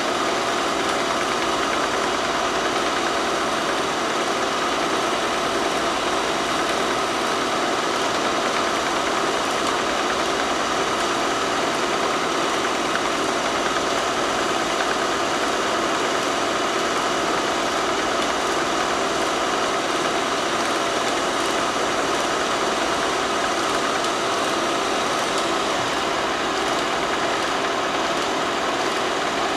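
Steady mechanical running noise with a constant hum and no breaks, the sound of a film projector running while silent footage plays.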